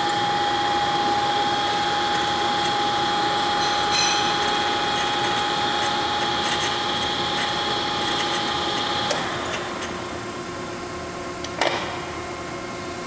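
Okamoto 1224 surface grinder running with a steady high whine over a hum; the whine stops about nine seconds in, leaving a quieter steady machine hum, with a sharp click near the end.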